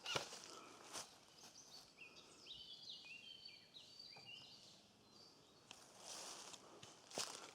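A small bird singing a quick run of short chirping notes for a few seconds in the middle, faint against the quiet woodland. A step or rustle is heard near the start and again near the end.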